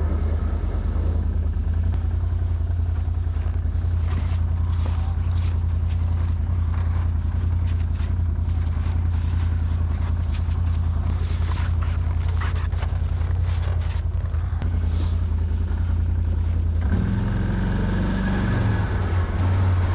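Can-Am Outlander 650 ATV's V-twin engine running steadily while plowing snow, with scattered scraping and knocking sounds in the middle. Near the end the engine note rises.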